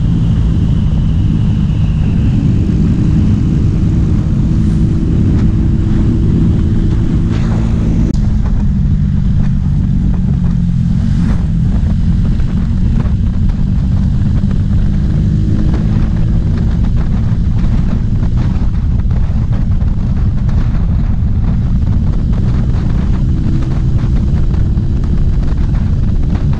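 Motor scooter engine running at road speed, mixed with wind buffeting on the camera microphone. The engine note shifts down about eight seconds in, then climbs slowly through the second half.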